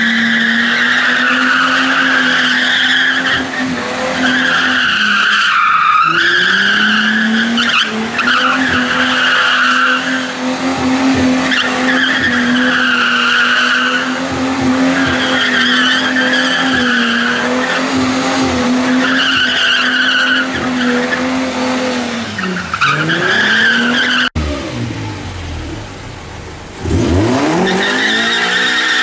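Ford Mustang spinning donuts: the engine is held at high, steady revs while the tyres squeal in waves about every two seconds. Near the end the revs fall and climb again before loud squealing resumes.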